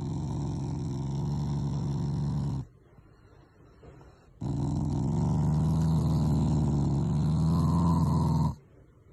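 Black Shiba Inu growling as its head is stroked: two long, low, rattling growls, the first about two and a half seconds long and the second about four seconds after a short pause. An affectionate growl, not an angry one.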